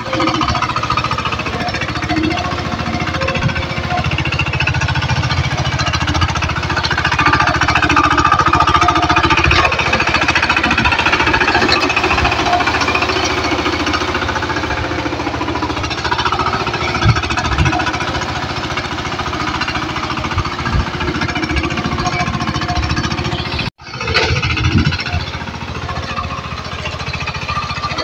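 Power tiller's single-cylinder diesel engine running steadily under load with a rapid knocking chug, its rotary blades churning a flooded paddy field into mud for rice transplanting. The sound drops out for an instant near the end, then resumes.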